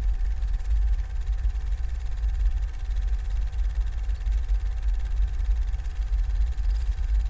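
Low, steady rumbling drone with a thin, steady hum above it.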